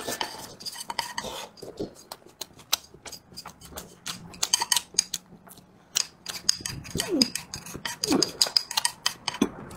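Wooden chopsticks clicking and scraping against a ceramic bowl as rice and a chicken wing are picked up and shoveled in, many quick irregular taps.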